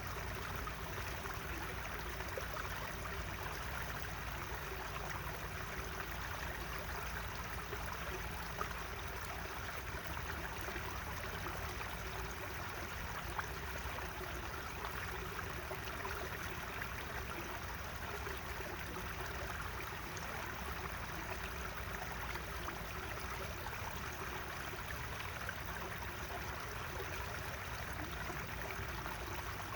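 Natural running water flowing steadily: an even, continuous rush of water.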